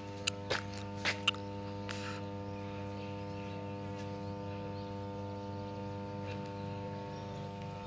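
Steady hum of energised substation power transformers: a low, even drone with a stack of higher overtones. A few brief sharp sounds come in the first two seconds.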